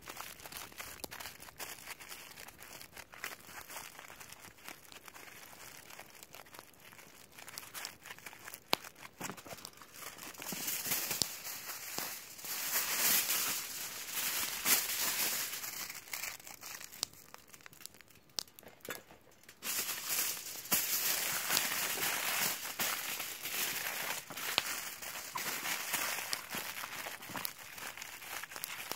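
Aluminium foil being crumpled and folded by hand, crinkling in spells: faint at first, louder from about a third of the way in, with a short lull about two-thirds through.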